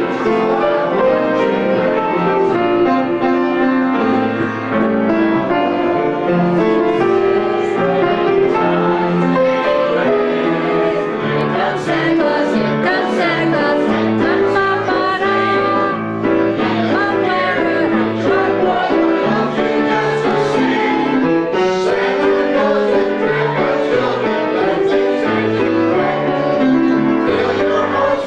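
A group of amateur voices singing a Christmas carol together, accompanied by two Steinway pianos.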